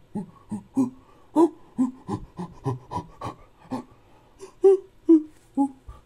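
Chimpanzee calls used as an ape-man sound effect: a fast series of short panting hoots, about three a second, that slow and rise a little in pitch near the end.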